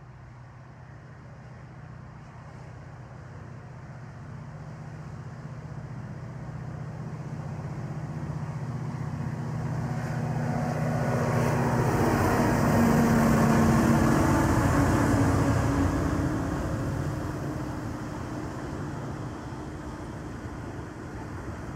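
Diesel train passing: a low diesel engine drone that grows louder as the train approaches, is loudest about two-thirds of the way through, then fades as it goes by.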